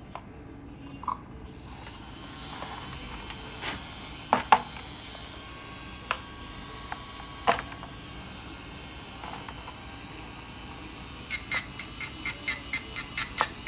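Low-speed dental handpiece spinning a polishing disc, a steady high hiss that starts about two seconds in, while a composite filling on a model front tooth is finished. A few sharp clicks sound over it, and near the end comes a quick run of ticks, about four a second.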